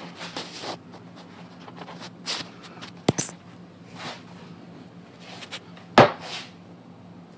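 Handling noises: scattered rustles and knocks of a ballistic gel block and black plastic bag being moved, with a sharp knock about three seconds in and a louder one about six seconds in, over a steady low hum.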